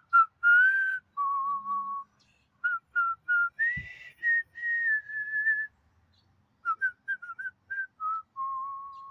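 A man whistling a slow tune: a string of clear single notes wandering up and down, some short and some held for a second or more, with a short pause about six seconds in.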